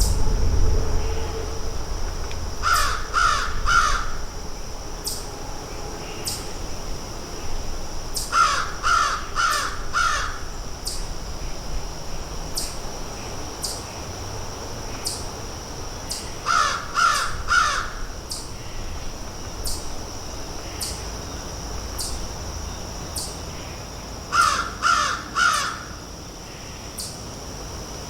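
Crows cawing in four short runs of three or four quick caws each, with sharp pecking ticks between the runs as they pick at food. A steady high-pitched whine runs underneath.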